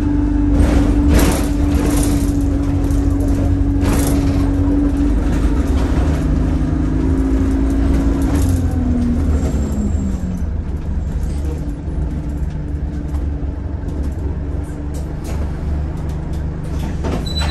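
Cabin sound of a single-deck diesel bus under way: a steady low engine drone with light interior rattles. A whine holds a steady pitch, then falls in pitch and fades about eight to ten seconds in.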